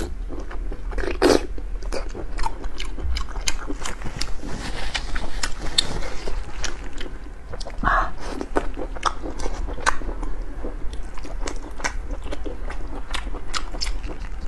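Close-miked mouth sounds of eating: wet chewing with frequent sharp lip smacks and bites, in a rapid irregular patter, with a louder wet bite about a second in and another about eight seconds in.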